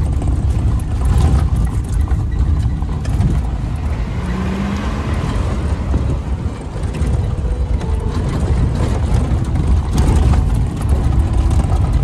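Maruti Gypsy 4x4 on the move: a loud, steady rumble of engine and road noise, with frequent knocks and rattles throughout.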